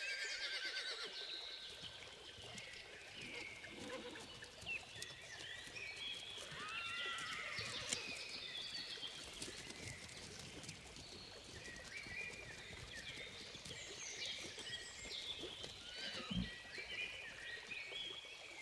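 Nature-sound opening of birds singing and chirping, with a horse whinnying. A single low thud comes late on.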